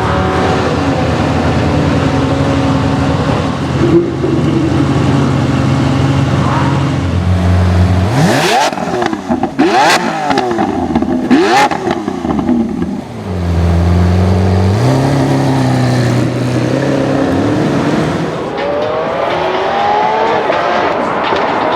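Lamborghini Centenario's V12 engine holding a steady note, stepping up, then revving hard in rising sweeps, with three sharp cracks in the middle. The engine settles into a steady note again and rises once more near the end.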